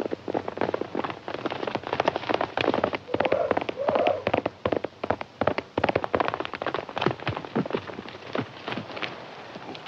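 Horses galloping hard on hard, dusty ground: a dense, irregular clatter of hoofbeats, with a short pitched cry about three and a half seconds in.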